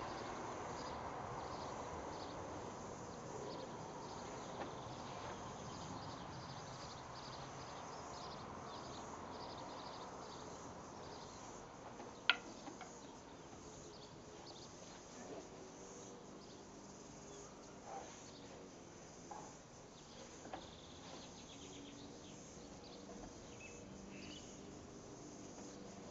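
Insects chirping steadily in the background, a fast repeated trill. A single sharp click about twelve seconds in, and a few soft thumps scattered through.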